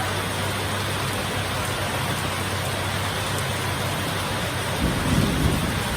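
Heavy rain falling as a steady, even hiss, with a short low rumble of thunder about five seconds in.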